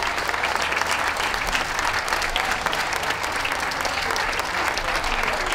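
Audience applauding steadily: many hands clapping together as a continuous patter.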